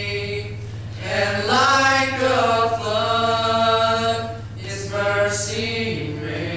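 A small group of boys' and young men's voices singing a slow hymn a cappella, holding long notes together.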